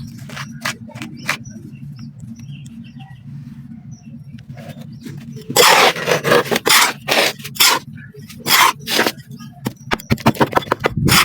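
Clumps of black sand being crumbled and crushed by hand, with gritty crunches and crackles. There are a few scattered crunches, a quiet pause, then a dense run of crunching about halfway through, and quick crackling near the end, over a steady low hum.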